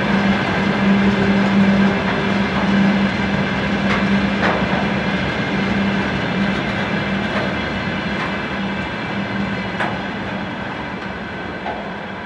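Freight train of railway tank wagons rolling past: continuous rolling noise over a steady hum, with occasional clicks of wheels over rail joints. The noise slowly fades toward the end as the last wagons move away.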